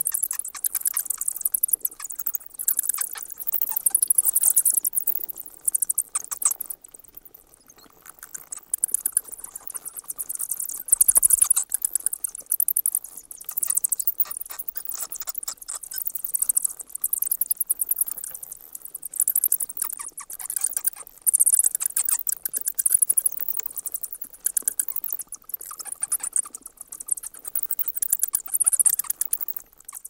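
Bats chittering: rapid high-pitched clicks and squeaks in bouts of a second or two, with a quieter lull about eight seconds in.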